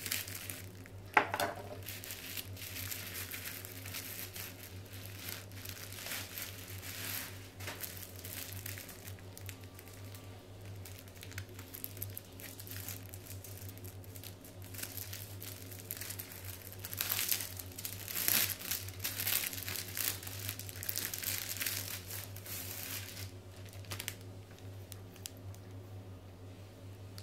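Bubble wrap and a thin plastic bag crinkling and rustling as they are handled and pulled off by hand, with one sharp click about a second in. The crinkling is busiest in the later part, then dies down near the end.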